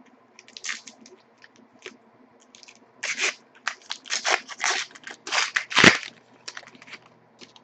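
Wrapper of a hockey trading-card pack crinkling as the pack is handled and opened: a run of short crackly rustles, densest from about three to six seconds in.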